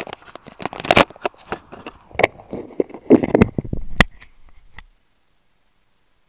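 Handling noise of a camera being moved about: irregular clicks, knocks and rubbing, stopping suddenly about five seconds in. No engine is running.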